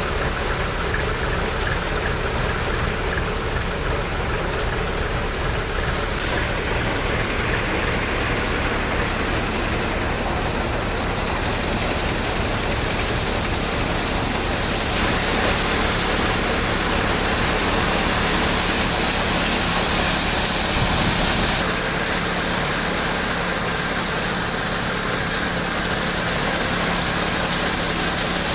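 Steady drone of a tractor-driven New Vishwakarma cutter thresher and its engine running. The sound shifts abruptly twice, and in the last few seconds carries a brighter hiss.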